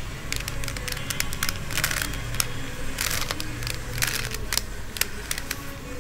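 Plastic Rubik's cube being twisted by hand: a run of quick, irregular clicks and rattles as its layers turn.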